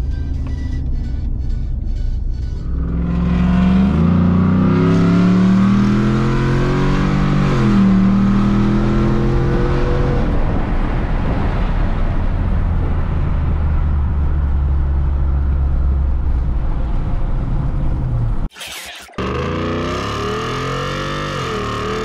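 Ford F-150's 5.0 V8 through a Borla ATAK exhaust, heard from inside the cab: it runs steadily, then about three seconds in the exhaust note climbs as the truck accelerates. The pitch dips once near eight seconds in, then settles to a steady cruise. The sound cuts out briefly near the end.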